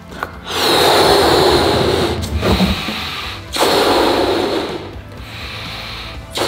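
Rubber balloon being blown up by mouth: long, forceful breaths of air rushing into it, with two strong blows separated by short pauses to draw breath.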